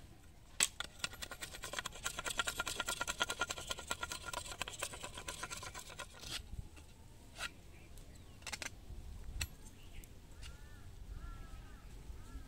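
Sickle blade scraping and shaving a green bamboo stick: a sharp knock, then a few seconds of quick, closely spaced scraping strokes, followed by a few single cuts.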